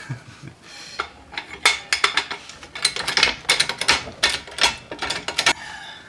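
Rapid, irregular metallic clinks and clanks of a floor jack being pumped up under a lower control arm, with a steel punch wedged against the steering knuckle. They start about a second in and stop shortly before the end.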